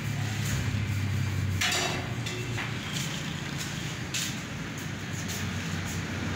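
Busy kitchen background: a low hum with scattered metal clinks and clatter, brightest about two seconds in.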